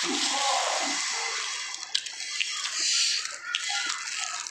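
Slurping and chewing of spicy instant noodles: a wet hiss of sucking-in noodles, strongest at the start, with a few sharp mouth smacks later on.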